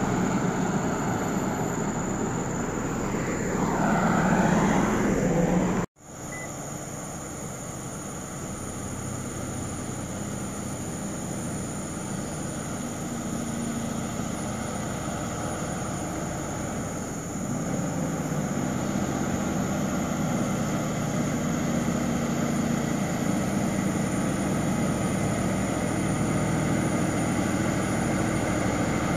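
Road traffic noise with a vehicle sweeping past. After a sudden cut, a heavy truck's diesel engine grows louder as the multi-axle Scania R580 prime mover, a V8, comes up the road toward the listener with its escort.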